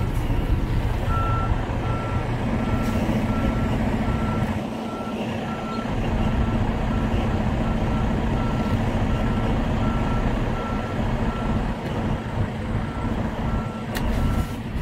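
Tractor-trailer's back-up alarm beeping steadily, a little more often than once a second, while the truck reverses, heard from inside the cab over the low rumble of the diesel engine, which settles into a steady hum a couple of seconds in.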